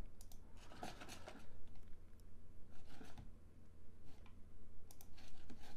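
A few faint computer mouse clicks, scattered through a pause in the talk, over a steady low hum.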